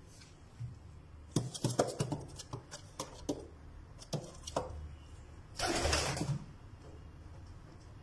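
African owl pigeons moving about on a wooden floor: a quick run of sharp taps and clicks over about three seconds, then a short, louder rustle about six seconds in, over a low steady hum.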